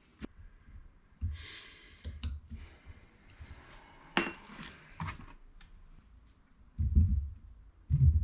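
Light clicks and clinks of small metal parts and hand tools being handled on an electric motor, with a short rustle early on and two low thuds near the end.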